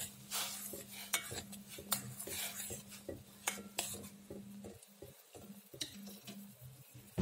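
Stirring roasted aval (flattened rice) into boiling milk in a pan: irregular clinks and scrapes of the stirring utensil against the pan, thinning out after about five seconds, over a faint steady hum.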